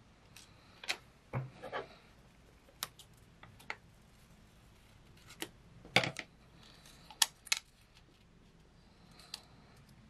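Close-up paper handling: a paper sticker being peeled from its backing and handled over a journal page, giving light crinkles and scattered sharp taps and clicks, the loudest about six seconds in and a quick pair about a second later.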